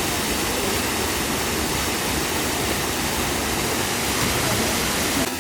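Waterfall: the steady, dense rush of falling water, cutting off abruptly near the end.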